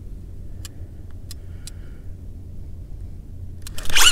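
A steady low rumble with a few faint ticks, then near the end a sudden loud rushing burst lasting under half a second as a fishing rod is swept back to set the hook on a bite.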